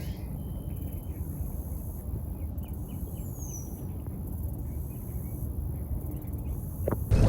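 Small birds chirping and twittering over a steady low rumble of wind, with one thin high falling whistle about three seconds in.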